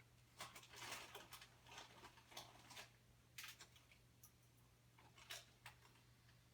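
Near silence: room tone with a steady low hum and faint, irregular clicks and ticks.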